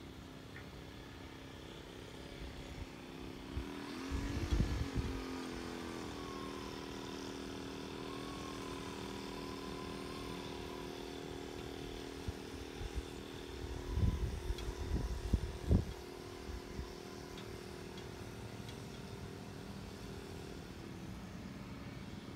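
A small engine runs steadily in the background, its pitch rising about four seconds in and then holding. Gusts of breeze buffet the microphone with low rumbles around four seconds in, and again several times between about fourteen and sixteen seconds in.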